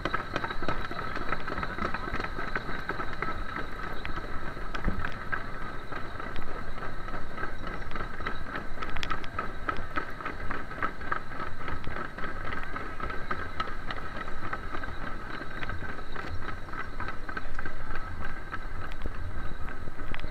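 A crowd walking, with many irregular footsteps and small clicks, over a steady high-pitched drone.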